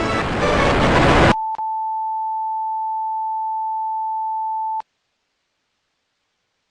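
Loud, harsh music mixed with noise cuts off abruptly about a second in. A steady, single-pitched electronic tone takes over, broken once just after it starts, holds for about three seconds and stops dead.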